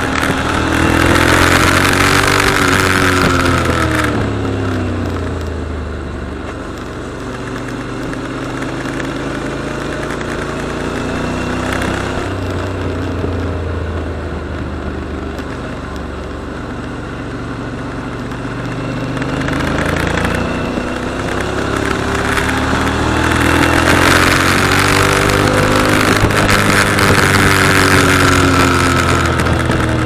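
Motorcycle engine running at road speed, its pitch rising and falling as the rider speeds up and eases off through the bends, with wind rushing over the microphone. It is loudest for the first few seconds and again in the last third.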